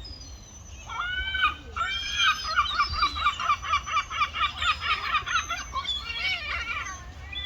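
Gull calling: a drawn-out cry about a second in, then a fast laughing run of short repeated notes at about six a second, easing off into a few looser calls near the end.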